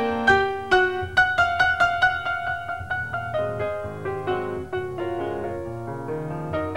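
Piano music: a quick run of rapidly repeated high notes, then a slower, softer passage lower down after about three seconds.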